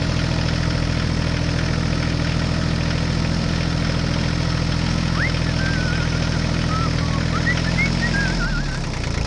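Tractor-style engine idling steadily, its sound changing a little before the end. A few short whistled chirps sound over it in the second half.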